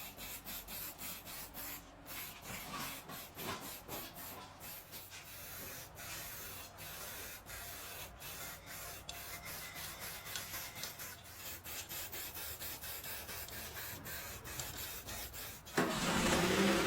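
Rhythmic rubbing or scraping strokes on a surface, a few strokes a second, as in hand sanding or rubbing down a panel. About a second before the end, a sudden much louder noise cuts in.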